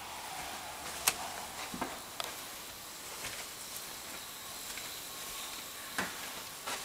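Steady hiss from a handheld camera's microphone, with a few sharp clicks and taps as it is carried through the house. The loudest click comes about a second in, a few fainter ones follow over the next second, and another comes near the end.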